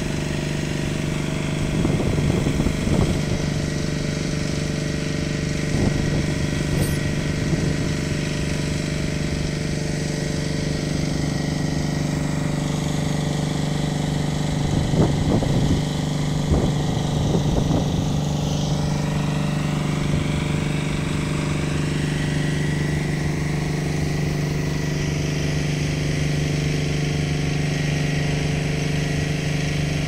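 A steady low engine hum, like an engine idling, with a few short irregular knocks now and then.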